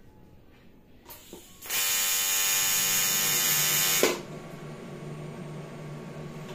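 AC TIG welding arc on aluminium from an RTech 211 AC/DC TIG welder: a tack weld, a loud steady buzz of about two and a half seconds after a brief faint crackle as the arc strikes, cutting off suddenly. After it a lower steady hum runs on, the welder's automatic cooling fan.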